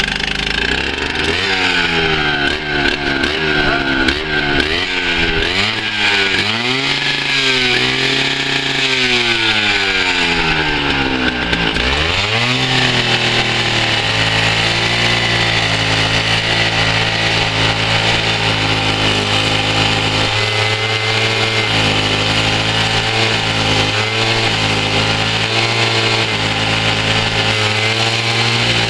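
Stihl TS 760 cutoff saw's two-stroke engine running just after a cold start, its speed rising and falling again and again for about the first twelve seconds, then settling to a steady, even speed.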